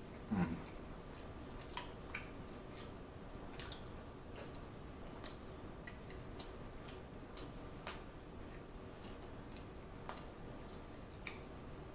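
Close-up chewing of a soft Hawaiian roll stuffed with rotisserie chicken: wet mouth clicks and smacks at an irregular pace, about one or two a second. A brief low hum from the eater just after the start.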